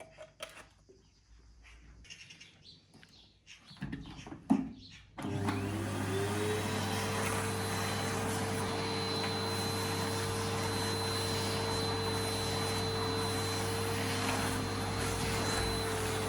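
A vacuum cleaner switched on about five seconds in: its motor spins up and then runs steadily with a hum and a high whine. Before it starts there are only a few faint knocks.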